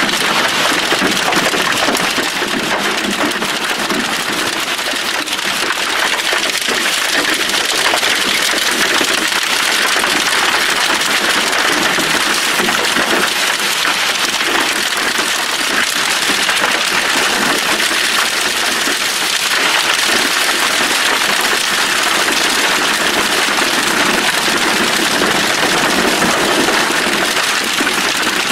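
Hailstorm with rain: hailstones and rain pelting down on grass in a dense, steady hiss of countless small impacts.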